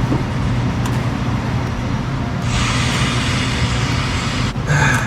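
A steady, loud low mechanical drone, with a hiss starting about halfway through and lasting about two seconds, then a brief clatter near the end.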